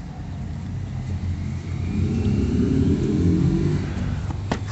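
Low rumble of a motor vehicle engine, swelling louder between about two and four seconds in, with one sharp knock near the end.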